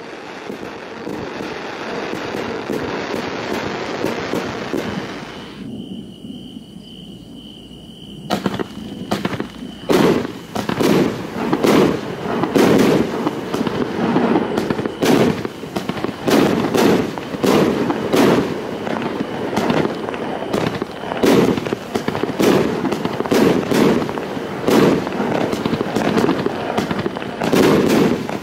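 Funke Funkenweide Rot Blinker 25-shot firework cake (battery) firing. A steady hiss runs for the first several seconds. About eight seconds in, the shots begin: sharp bangs in quick, uneven succession that keep going.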